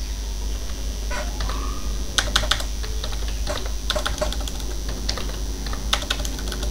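Typing on a computer keyboard: irregular key clicks in short runs, starting about a second in, over a steady low hum.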